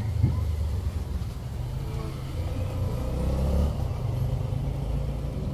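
A motor vehicle's engine running with a low rumble, growing louder toward the middle and then easing off, like a car going by.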